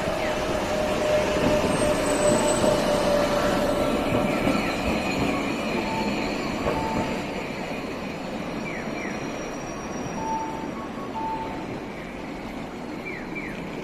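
Iyotetsu streetcar passing on its street track with a steady high whine that sags slightly in pitch over the first few seconds, its running noise then fading as it moves away. Short repeated beeps sound over the street noise in the second half.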